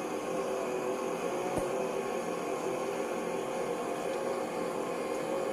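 Electric stand mixer running steadily, its motor humming evenly as it beats the mousse mixture in the stainless steel bowl, with one small click about a second and a half in.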